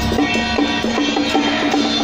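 Taiwanese temple-procession percussion music accompanying a Ba Jia Jiang troupe: drums and other percussion with a quick, steady knocking beat of about four or five strokes a second.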